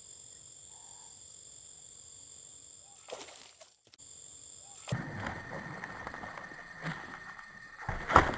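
Steady high chirring of crickets and other insects. About five seconds in it gives way to a rougher rustling noise with a few sharp knocks near the end.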